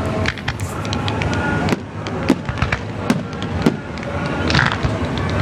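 Fireworks display: aerial shells bursting and sparking comets rising, with irregular sharp bangs several times a second over a steady noisy background.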